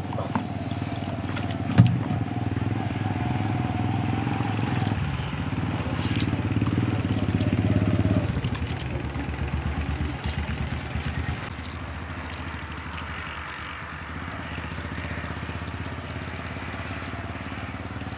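Rice being washed by hand: water splashing from a plastic jerrycan into a plastic bowl and swished through the grains, under a low engine-like rumble that eases after about eleven seconds. A few sharp knocks come through, the loudest about two seconds in.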